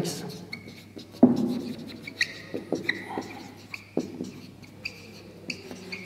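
Marker pen writing on a whiteboard: a run of short high squeaks as the strokes are drawn, with a couple of sharper knocks.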